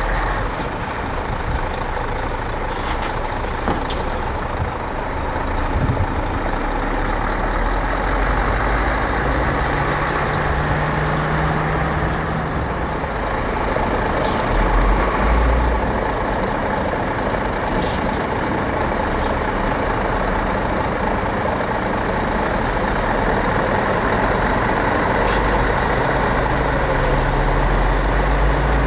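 Scania trucks' diesel engines running steadily as the trucks drive slowly around the yard, with two short sharp sounds about three and four seconds in.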